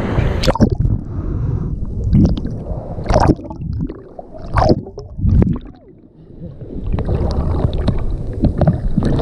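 River water splashing and sloshing close to the microphone in irregular sharp bursts, as a bather waist-deep in the river throws water up over herself. The sound drops low about six seconds in, then a steady rush of water and wind returns.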